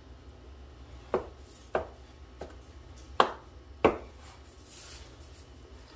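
A blade chopping through soft dough onto a wooden butcher-block board: five sharp knocks, roughly half a second apart, in the second to fourth seconds.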